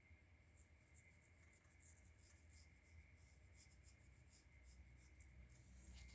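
Faint scratching of a pencil on paper, drawn in many quick short strokes.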